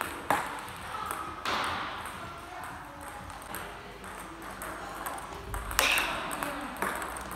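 A handful of scattered, irregular table tennis ball clicks, the hard plastic ball bouncing on a table and off a bat, with a short ring of echo in a large sports hall. The loudest comes about six seconds in.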